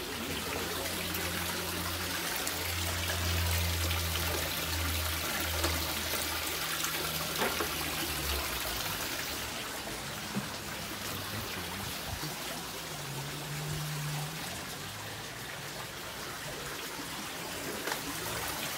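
Steady trickling and splashing of running water, with a low hum underneath for the first eight seconds or so.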